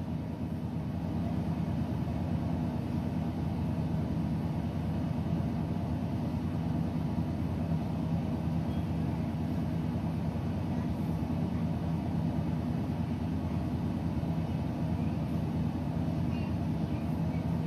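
Steady low-pitched fan hum with an even rushing noise.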